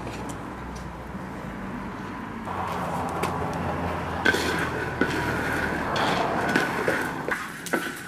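Terebinth berries being roasted in a wide iron pan over a wood fire: a steady background hiss, then from about halfway a wooden spatula stirring the berries, with sharp clicks and knocks against the pan.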